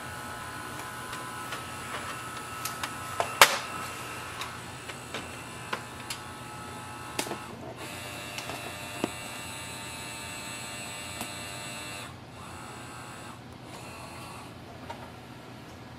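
Canon Pixma TR7620a's automatic document feeder pulling a sheet through and scanning it: a steady mechanical whine with scattered clicks and one sharp click about three seconds in. The motor note changes around halfway and runs a little quieter near the end.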